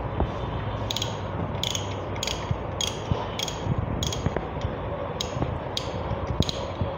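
Hand ratchet wrench clicking in short strokes, about ten back-swings roughly every half second, turning the oil drain bolt under a Yamaha R15 V-M's engine, over a steady low hum.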